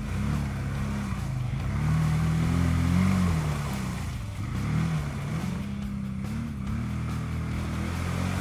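Loncin X-Wolf 1000 ATV's 1000 cc engine revving, its pitch rising and falling several times as the throttle is worked while the quad pushes at a pile of ice. The revs are highest about two to three seconds in.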